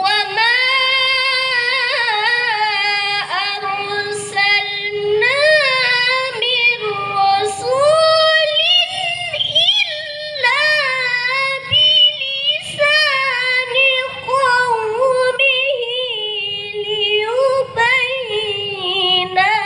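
A woman reciting the Quran in the melodic tilawah style, her high voice holding long, wavering ornamented phrases.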